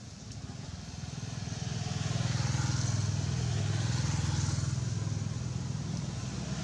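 A motor vehicle engine running nearby, a low pulsing hum that grows louder over the first two seconds and then holds steady.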